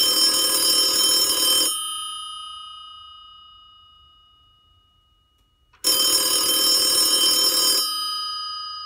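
Telephone ringing with an old-style bell ring, twice, each ring lasting about two seconds and its tone dying away slowly afterwards: an incoming call.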